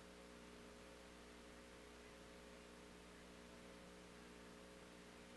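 Near silence: a faint, steady electrical hum over a low hiss.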